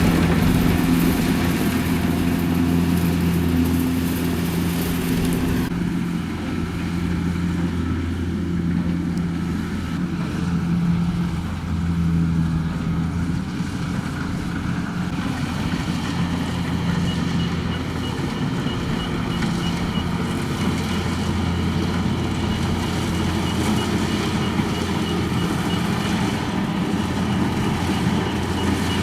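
Kubota DC-70 combine harvester's diesel engine and machinery running steadily at a constant note. A high hiss drops away about six seconds in.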